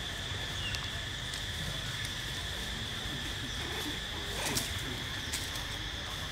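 Steady high-pitched insect drone, with a couple of sharp clicks about four and a half and five seconds in.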